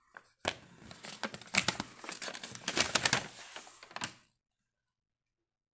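A folded paper instruction sheet being unfolded and handled, crinkling for about four seconds and then stopping.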